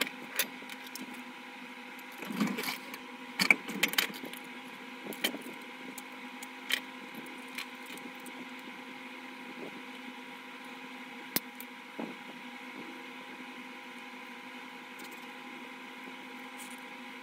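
Light clicks and knocks of small wooden strips and a wooden mousetrap being handled and fitted together on a work table, a cluster of them about two to four seconds in and a few single taps later, over a steady hum.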